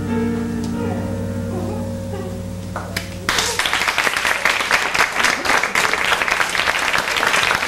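Held music tones, then audience applause breaks out suddenly about three seconds in, louder than the music, and carries on.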